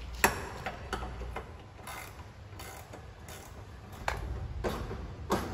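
Scattered sharp clicks and light knocks, about ten at uneven intervals with the first the loudest, over a low hum.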